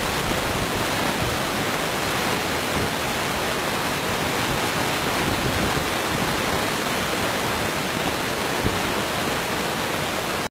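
Steady, loud, even hiss of noise, like static or rushing water, with no calls or other distinct sounds in it.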